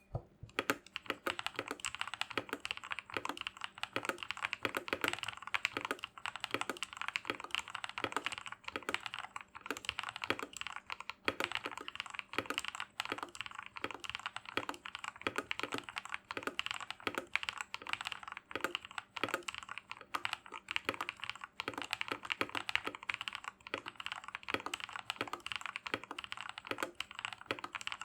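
Modded Royal Kludge RK84 mechanical keyboard being typed on steadily and quickly, a continuous run of clacking keystrokes.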